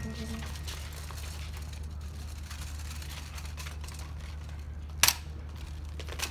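A steady low outdoor rumble, broken about five seconds in by one sharp crack from the honour guard's rifle drill, many rifles handled in unison, with a smaller click near the end.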